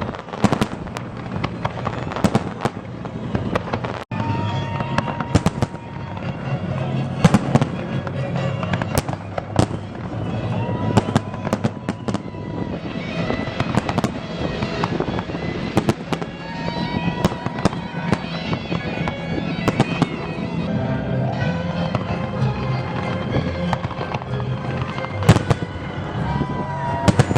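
Fireworks going off in rapid, irregular bangs and crackles. From about four seconds in, music plays underneath: a steady low drone with a held melody over it.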